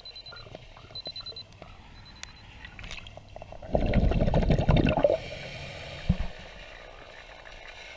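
Underwater bubbling and gurgling, loudest in a burst of about a second and a half near the middle, with a shorter gurgle about two seconds later. Faint, evenly pulsed high electronic beeps sound in the first second and a half.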